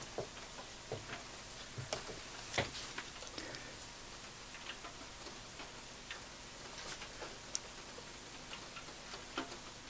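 Faint, irregular taps of a paintbrush dabbing small dark marks onto watercolour paper, about a dozen over the stretch, one louder than the rest about two and a half seconds in.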